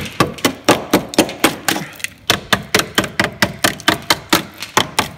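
Hammer tapping rapidly along the corroded underbody and inner sill of a Mercedes Vito van, about five blows a second with a short pause about two seconds in. The blows probe the steel for rust rot.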